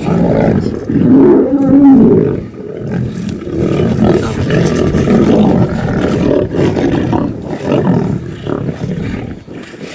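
Several lions growling and snarling at each other as they squabble over a warthog carcass while feeding. The growls are loudest for the first couple of seconds, then go on as quieter, irregular rumbles.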